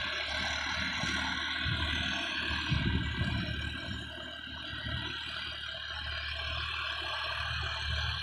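Sonalika DI-50 RX tractor's diesel engine running steadily under load while it pulls a tillage implement through loose soil, with a few low thumps in the first three seconds.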